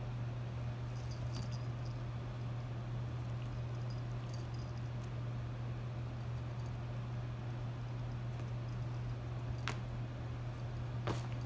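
Kittens pawing at a strip of paper on a fabric couch: faint ticks and rustles, with two sharper clicks near the end, over a steady low hum.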